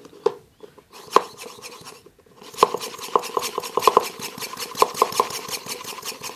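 Hand-held plunger vacuum pump worked fast on the valve of a plastic airtight food container, pumping air out of it. A rapid run of plastic clicks and knocks over a steady tone, with the strokes coming quicker and louder from about two and a half seconds in.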